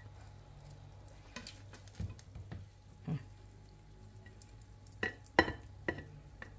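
Serving spoon scooping cooked rice, lentils and pasta onto a ceramic plate: soft scrapes and a scatter of clinks and knocks of the spoon against the pot and plate, the loudest about five seconds in. A low steady hum runs underneath.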